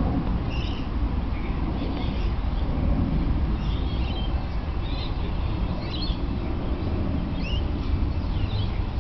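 Birds chirping, short calls scattered through, over a steady low rumble.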